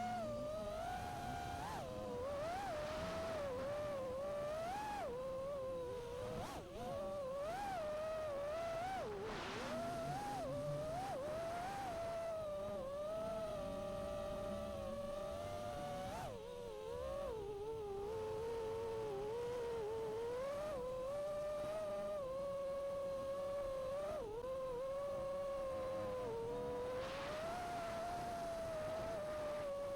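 A 5-inch FPV racing quadcopter's T-Motor Velox 2207 motors and Nazgul 5140 propellers whining in flight. The pitch rises and falls continuously as the throttle is worked.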